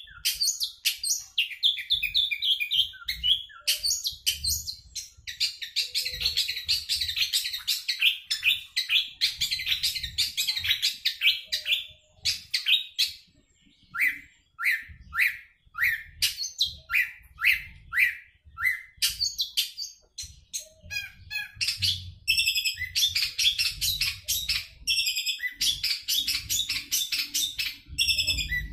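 Long-tailed shrike (cendet) singing a fast, varied, unbroken song of chattering and trilled notes. About halfway it breaks off briefly, gives a run of separate down-slurred notes, then goes back into fast continuous song.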